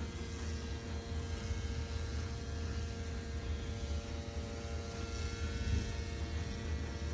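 Steady electrical or mechanical hum: a constant low rumble with several fixed tones above it, unchanging throughout.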